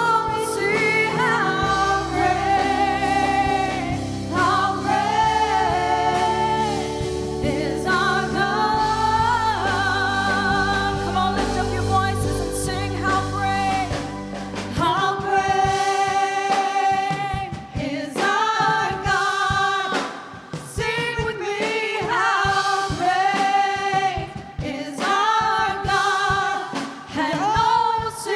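Gospel worship song: voices singing over instrumental accompaniment. About halfway through, the sustained low chords give way to a more rhythmic, pulsing backing.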